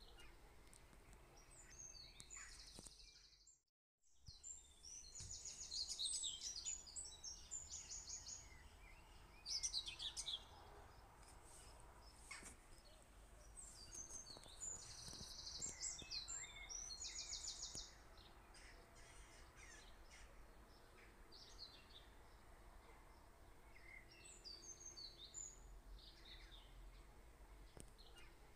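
Faint birdsong: repeated high chirps and rapid trills. About four seconds in there is a brief complete dropout.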